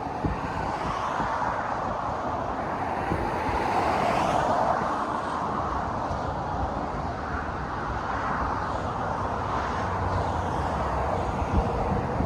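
Steady road-traffic noise, with passing vehicles swelling louder about four seconds in and again near ten seconds.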